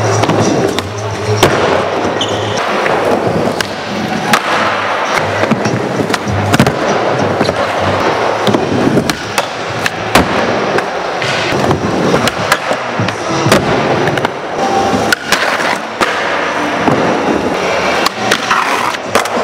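Skateboard wheels rolling over the concrete of an indoor skatepark, with many sharp clacks and slaps of boards hitting the surface.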